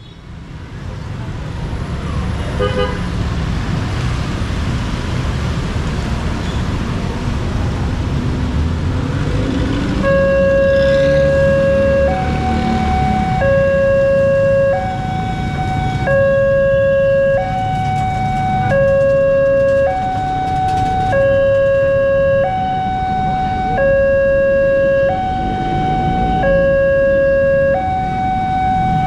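Motorcycle traffic running across a railway level crossing, then about ten seconds in the crossing's electronic warning alarm starts: a loud two-tone low-high signal, each tone held a second or two, repeating steadily, warning that a train is approaching.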